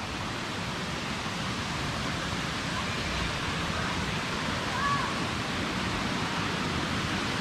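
Steady, even rush of stream water cascading below.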